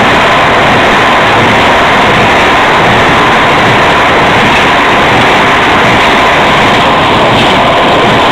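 Loud, steady running noise of heavy farm machinery close by, with no change in pitch or level.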